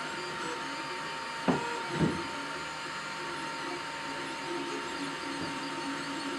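FDM 3D printer printing, its stepper motors whirring in shifting tones as the print head moves. Two short knocks come about a second and a half and two seconds in.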